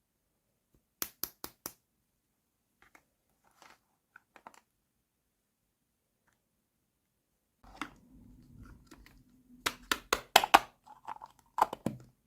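Small plastic toy kitchen pieces being handled, clicking and tapping against each other: four quick clicks about a second in and a few faint ticks, then a denser run of louder clicks and rustling over a low hum in the last few seconds.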